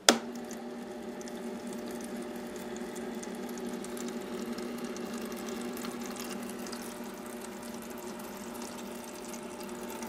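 A sharp click as the switch opens an AC ice-maker solenoid valve, then the valve's steady hum with water running through the line and trickling into the coffee maker's reservoir.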